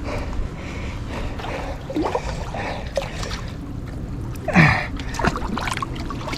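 Water sloshing and splashing as a large alligator gar is handled in the shallows at the canal edge, with a short, louder burst about four and a half seconds in.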